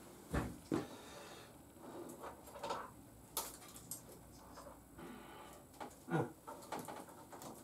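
Scattered handling noise of hands-on work: irregular knocks and clicks, the loudest two close together about half a second in and another about six seconds in.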